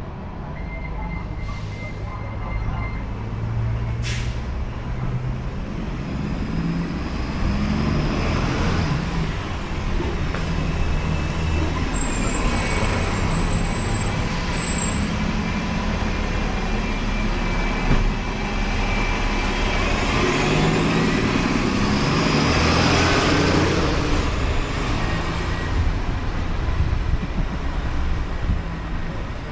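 Road traffic: engines of heavy road vehicles such as trucks or buses running and passing, swelling twice, about eight seconds in and again about twenty seconds in.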